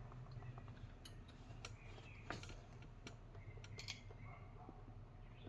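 Faint, scattered clicks and clinks of small metal hand tools being handled and tried on a fastener to find its size.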